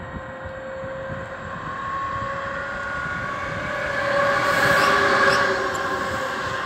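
A Deutsche Bahn electric locomotive running past close by with a whine, growing louder to a peak about four to five seconds in.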